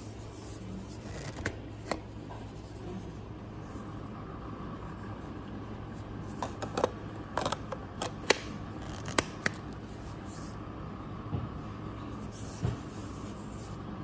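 Scattered plastic clicks and taps as a Baseus C1 mini car vacuum cleaner is gripped and turned in the hands, most of them between about six and ten seconds in; its motor stays silent, because the fully charged vacuum is dead and no longer runs. A steady low hum sits underneath.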